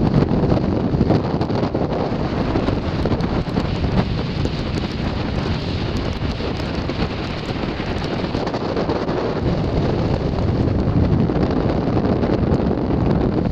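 Hurricane wind buffeting the microphone as a continuous low rumble of wind noise, easing a little in the middle and building again near the end. Storm waves break against the rock shoreline underneath it.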